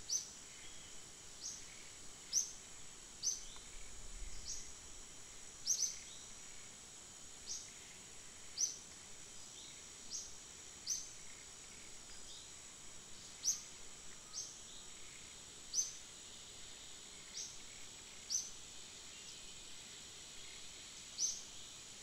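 Outdoor forest ambience: a steady high insect drone, with a short, high chirp that falls in pitch repeated irregularly about once a second.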